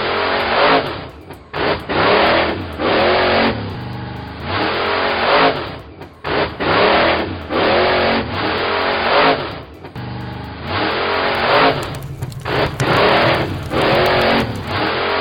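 Vehicle engine revving over and over, its pitch rising and falling about once a second.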